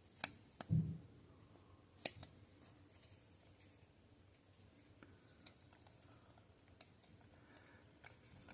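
Sharp clicks and a short, dull knock as a pocket knife and a piece of pine wood are handled, then a few faint ticks.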